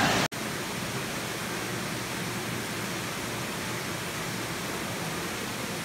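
Steady, even rushing noise of an indoor swimming pool hall, starting after a brief gap just after the start.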